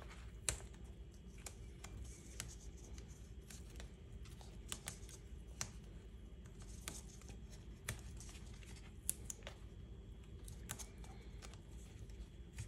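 Faint handling sounds of cardstock and adhesive tape as strips of tape are laid on a card panel: scattered small sharp clicks and taps at irregular intervals over a low steady hum.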